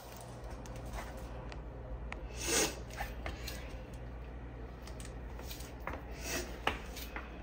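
Soft handling noises: light rustling and a few small clicks, with a short louder rustle about two and a half seconds in, over a steady low hum.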